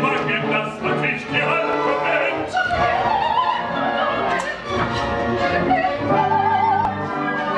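Opera singing with orchestra in a live stage recording: voices singing over the orchestra, with a high woman's voice singing with wide vibrato about six seconds in.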